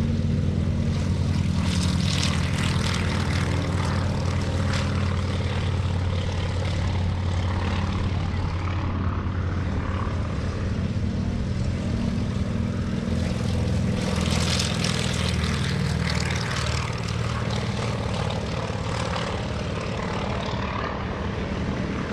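Yakovlev Yak-52TW's nine-cylinder M-14P radial engine running at low power as the propeller aircraft taxis, a steady low drone.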